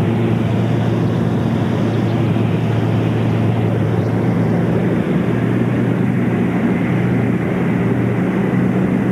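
Light single-engine plane's piston engine and propeller droning steadily, heard from inside the cabin in flight; the engine note shifts slightly about five seconds in.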